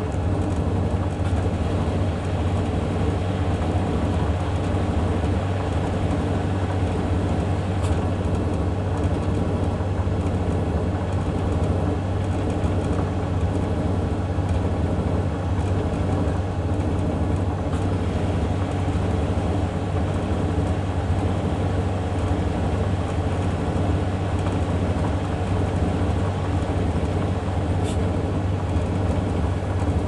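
Hoover Vision Tech condenser tumble dryer and Samsung washing machine running together mid-cycle: a steady, unchanging machine hum with a strong low drone.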